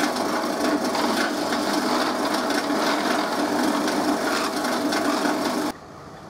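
Drill press boring a hole into a PVC pipe fitting: the steady motor hum under the rough noise of the bit cutting the plastic, stopping abruptly near the end.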